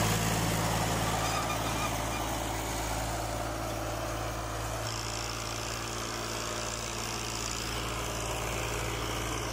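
New Holland Ghazi 55 hp tractor's diesel engine running steadily while pulling an eleven-tine cultivator through the soil, a little louder in the first second.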